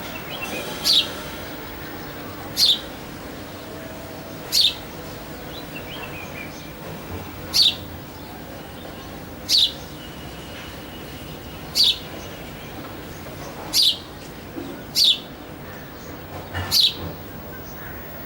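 House sparrow chirping: single short chirps, each dropping in pitch, repeated about every two seconds, nine in all. A steady background noise runs under them.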